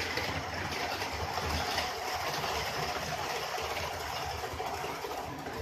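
HO scale model train running on sectional track, a steady rolling noise from the wheels and locomotive motor.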